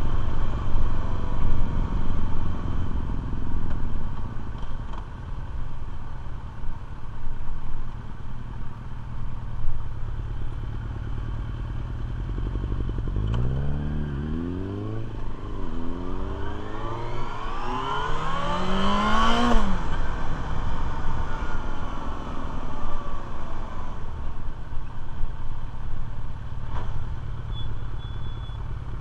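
Motorcycle engine heard from the rider's seat with steady road noise. About halfway through, it pulls away and rises in pitch through about four gear changes, then settles back to a steady low running.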